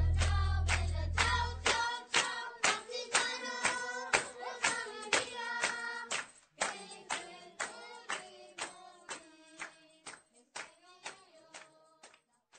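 Background music fading out: a held chord dies away, then a melody of short, sharp notes about two a second, each ringing briefly, grows steadily quieter until it stops.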